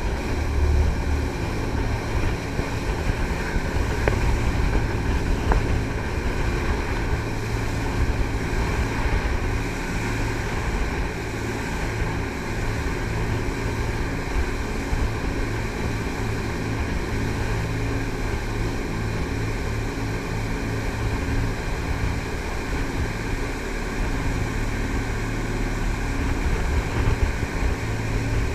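Jet boat's three Cummins marine diesels, each driving a Hamilton jet pump, running steadily under way, heard on board with wind buffeting the microphone.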